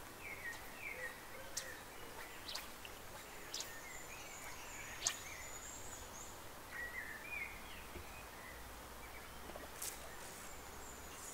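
Small birds singing in short, repeated chirping phrases over a steady hiss of flowing river water, with a few sharp ticks scattered through.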